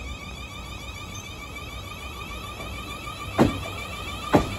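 Class 444 electric multiple unit creeping along at low speed: a steady low rumble under a steady high whine from the traction equipment. Near the end come two sharp clunks about a second apart, typical of a bogie's wheelsets crossing a rail joint.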